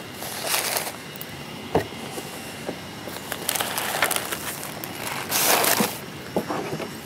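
Stiff unwaxed peach butcher paper crinkling in several bursts as a paper-wrapped pork shoulder is handled and set into a plastic ice chest, with a sharp knock from the cooler about two seconds in.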